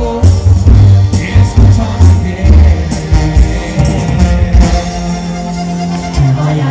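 Live regional Mexican band music: a male voice singing over accordion, sousaphone bass, guitar and drums, with the bass thumping in a steady rhythm.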